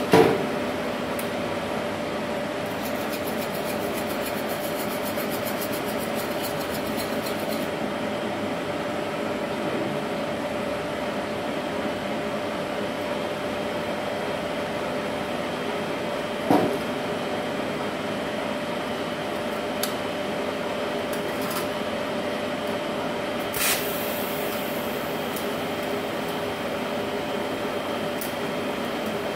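Steady electrical hum of idle TIG welding equipment, an inverter welder and its torch water cooler, with no arc struck. A sharp metal clank comes right at the start as the steel pipe is set on the steel stand, and two fainter knocks follow later.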